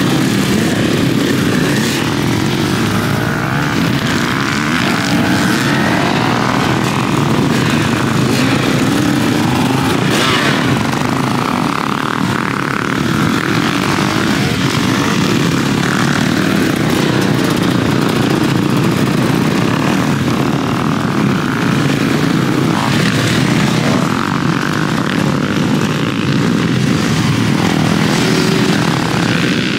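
Many dirt bike engines running together, idling and revving, as riders accelerate away from the start line.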